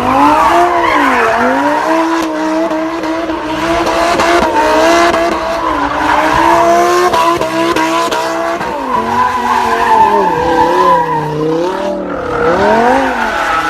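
A car engine revving hard, its pitch held high, then dipping and rising again several times near the end. Tyres squeal through it as the car slides in a drift.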